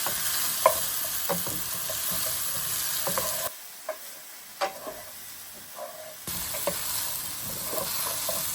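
Broccoli, sweet potato, leek and garlic sizzling in a frying pan as they are stirred, with the utensil clicking against the pan now and then. The sizzle drops away for about three seconds in the middle, then returns.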